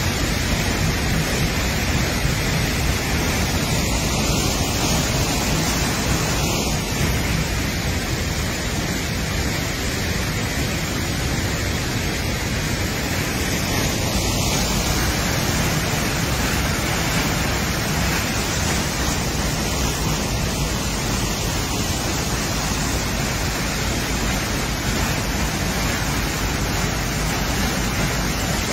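Waterfall pouring down a granite rock face into the sea, a steady rush of falling and splashing water.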